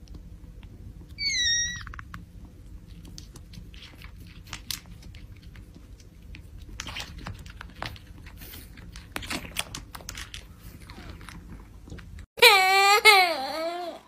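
Kittens suckling milk from a small feeding bottle: faint wet sucking and smacking clicks, with one short high kitten mew about a second in. Near the end a loud, high voice with wavering pitch starts suddenly.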